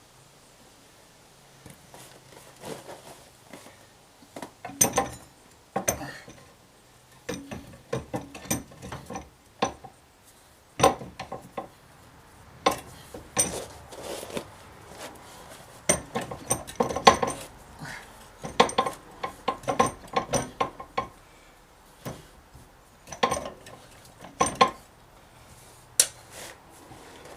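Metal hand tools and parts clinking and knocking together at irregular intervals, some strikes ringing briefly, as they are handled during mechanical work.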